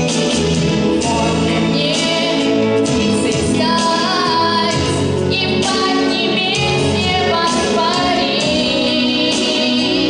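A girl singing solo into a microphone over instrumental backing music, with vibrato on her held notes.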